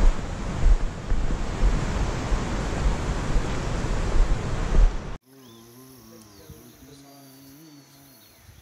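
Wind buffeting an action camera's microphone on a mountain trail: a loud, steady rushing hiss with low rumbling gusts. It cuts off abruptly about five seconds in, leaving a much quieter scene with faint bird chirps and a low wavering hum.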